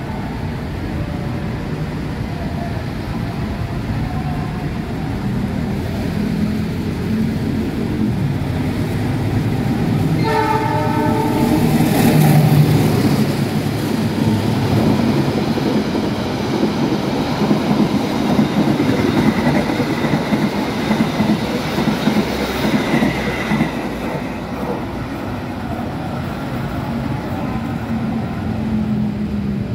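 Long-distance passenger train running straight through a station without stopping. Its horn sounds once, briefly, about ten seconds in. The coaches then rumble and clatter past on the rails, loudest just after the horn, and the noise eases off in the last few seconds.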